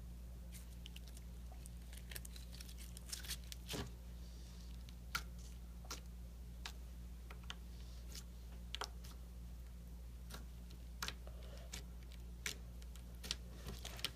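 Slime with buttons and beads mixed in being squeezed and stretched by hand: irregular sharp clicks and pops, some in quick clusters, over a steady low hum.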